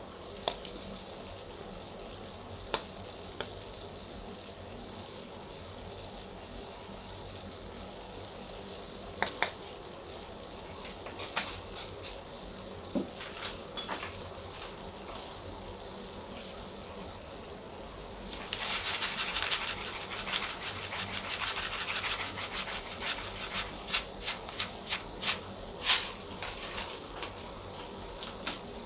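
Chicken frying in a stainless steel pot, a steady low sizzle with scattered sharp clicks. About two-thirds of the way through the sizzle grows louder, with many quick crackling pops.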